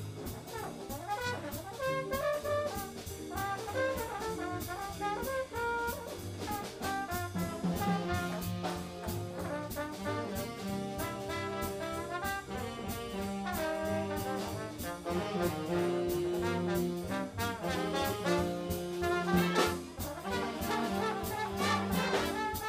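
Live big-band jazz: a brass-heavy ensemble with saxophones, trombones and trumpets playing over drums that keep a steady beat. The band swells louder near the end.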